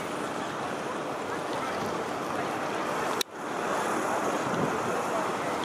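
Steady rushing outdoor noise, with a sharp click and a brief drop about three seconds in where the recording cuts.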